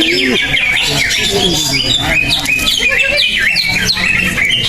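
Cucak ijo (green leafbird) singing a fast, unbroken stream of chirps and quick up-and-down whistled notes.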